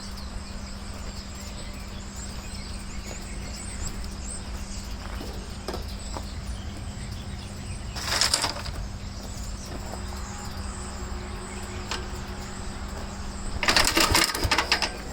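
Gravely tractor's single-cylinder engine being cranked over by hand twice, a short burst about eight seconds in and a longer one of quick strokes near the end, without firing: it is being checked for spark after failing to start, and shows none.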